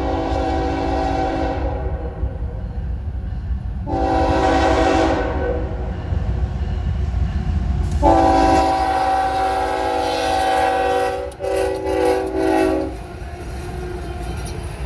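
Norfolk Southern diesel locomotive NS 8104's multi-note air horn sounding a series of blasts: one ending about two seconds in, a short blast about four seconds in, then a long blast from about eight seconds that breaks briefly and stops near thirteen seconds. A steady low rumble of the train runs underneath.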